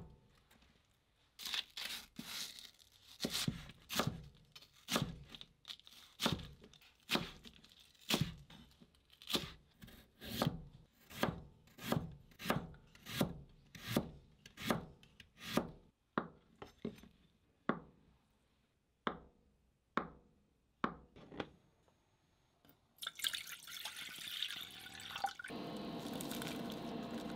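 Chef's knife chopping napa cabbage and then carrot on a plastic cutting board, an even rhythm of about two knocks a second, slowing to a few scattered cuts. Near the end it gives way to a steady hiss with a hum as water comes to the boil in a stainless steel pot on an induction hob.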